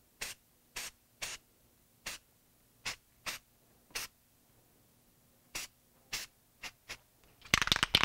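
Aerosol spray paint can giving about a dozen short, separate hisses, the paint dusted on in quick light taps. Near the end the can is shaken hard, with a loud fast rattle.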